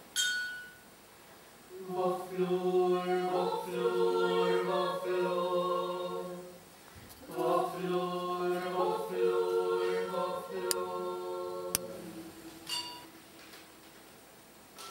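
A small group of voices singing together without accompaniment, two long phrases of held notes in harmony with a short pause between them. A brief ringing note sounds at the very start.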